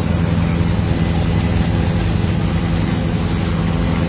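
Helicopter engine and rotor noise: a loud, steady drone with a stack of low tones.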